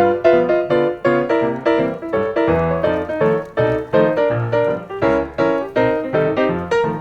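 Background piano music: an even stream of notes over a bass line.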